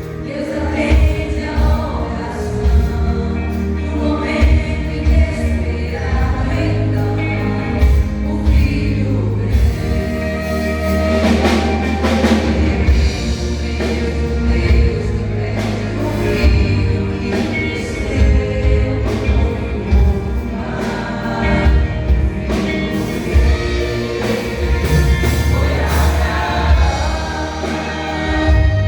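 A vocal group singing a gospel song in harmony over instrumental backing, with a heavy bass line and regular percussive beats.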